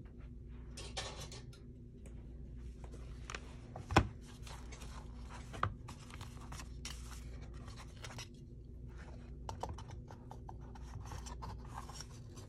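Paper rustling and scraping as a stack of journal pages is handled and squared up. A sharp clip snaps shut about four seconds in, and a lighter click follows a second and a half later.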